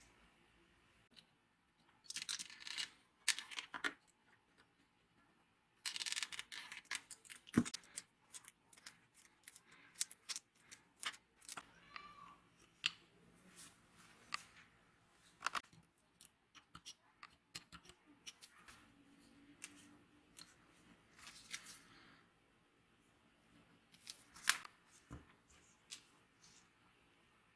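Irregular clusters of short scraping and rubbing strokes with light clicks and knocks from hand work on the wooden level.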